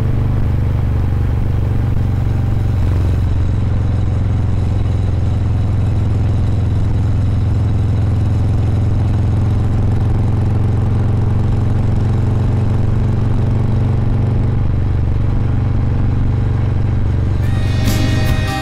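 Harley-Davidson Heritage Softail's Milwaukee-Eight V-twin running at a steady cruise on the open road. Music comes in near the end.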